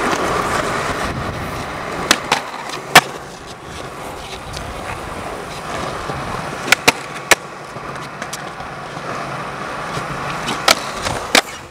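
Skateboard wheels rolling on smooth concrete, broken by sharp clacks of the board hitting the ground: pops and landings of tricks. There are three clacks near the start, the loudest about three seconds in, three more in quick succession around the middle, and two near the end.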